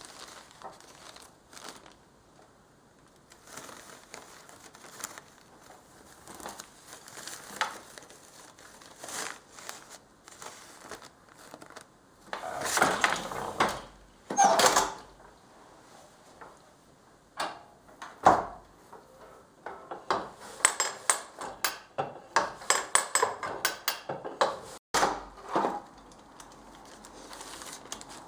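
Weaving on a loom with paper: crinkling and rustling of the paper, with irregular clicks and knocks from the loom's moving parts, a dense run of clicks in the second half.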